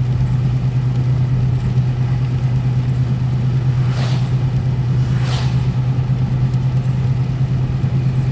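Car cabin noise while driving on a rain-soaked road: a steady low drone of engine and tyres on wet pavement. The windshield wipers swish faintly about four and five seconds in.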